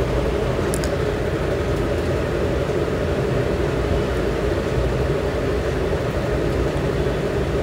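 Hot oil sizzling steadily in an aluminium kadhai as cumin and mustard seeds fry for a tadka, over a low steady hum.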